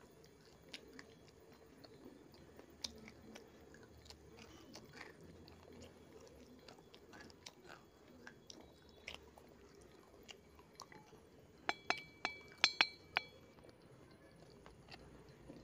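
A person biting and chewing baked edible clay (Punjab ki Mitti): faint, soft crunches throughout, then a quick run of about six loud, sharp, slightly ringing cracks about twelve seconds in as a hard piece snaps between the teeth.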